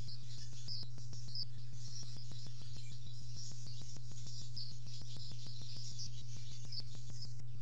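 Nest-camera audio: a steady low electrical hum with fast, evenly spaced clicking, and short high chirps scattered over it.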